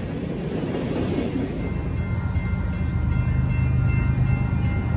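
Freight cars of a passing train rolling and clattering over the rails. About two seconds in, this gives way to the low, steady rumble of an approaching freight train's diesel locomotive, which grows louder.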